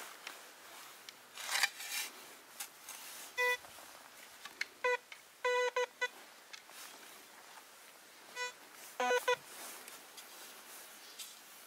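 Deeptech Vista Smart metal detector giving short, low beeps as its coil is passed over a freshly dug hole, signalling a metal target in the soil. First comes a single beep, then a cluster of quick beeps, another single, and another quick cluster. Scraping and rustling of a shovel cutting turf falls between them.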